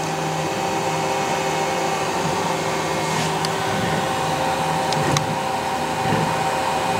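Raise3D N1 3D printer running mid-print: a steady whir of its cooling fans with a low motor hum that comes and goes as the print head moves.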